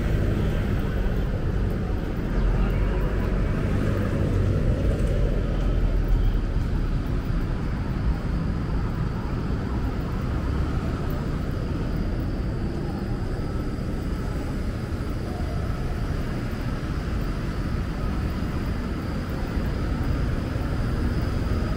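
Outdoor street ambience with a steady low rumble and no distinct events.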